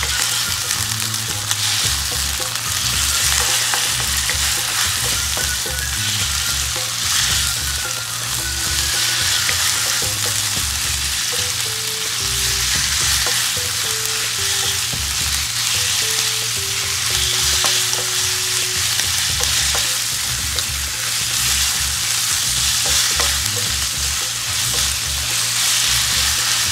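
Chicken fillet, onions and garlic sizzling in hot oil in a nonstick pan, stirred and tossed with a spatula without a break.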